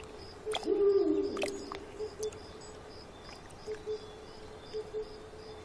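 A bird's low two-note hooting call, repeated every second or so, over faint, evenly spaced high chirps. About a second in, a louder falling sound and a couple of sharp snaps.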